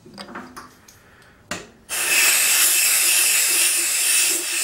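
Steady hiss of compressed air from a blow gun, coming on about two seconds in after a short knock.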